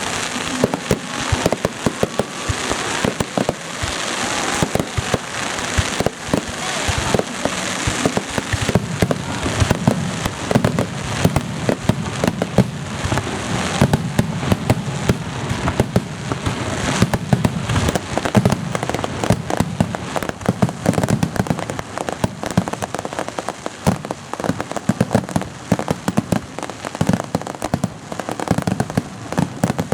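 Aerial fireworks bursting in a dense, continuous barrage: many overlapping bangs and crackles with no pause.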